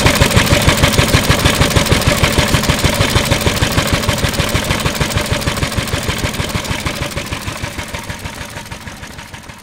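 Yoshida Type C 2.5 hp single-cylinder oil engine running at a steady idle with an even, regular beat. It grows steadily fainter over the last few seconds.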